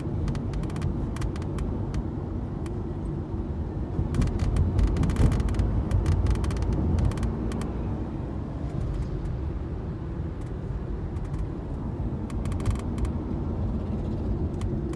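Tata Nexon's sunroof rattling with irregular clicks over the steady rumble of the car driving on a smooth road. The clicks come thickest in the middle of the stretch and again near the end.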